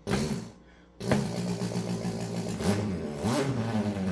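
A man imitating a revving dirt bike engine with his mouth: a short blip at the start, then from about a second in a continuous engine note with several quick rises and falls in pitch, like a throttle being blipped.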